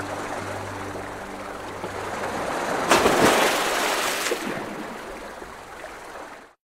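Sea waves washing and breaking against rocks, with one loud crash and spray about three seconds in that then dies away. The sound cuts off suddenly near the end.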